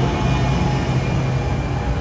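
NJ Transit Arrow electric multiple-unit train passing at close range: a steady, loud rumble of wheels on rail with a low motor hum.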